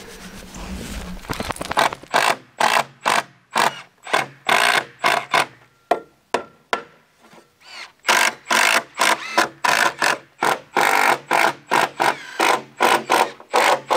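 Carpentry on a lumber coop platform frame: a quick, uneven run of short, sharp noisy strokes, several a second, over a low steady hum, with a pause of about two seconds near the middle.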